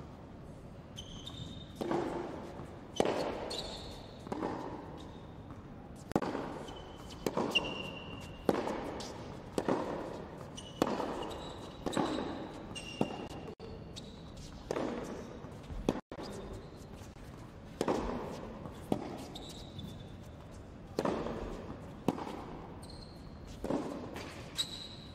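Tennis practice rally on an indoor hard court: rackets striking the ball and the ball bouncing, about one impact a second, each ringing briefly in the hall. Short high squeaks of tennis shoes on the court come between the hits.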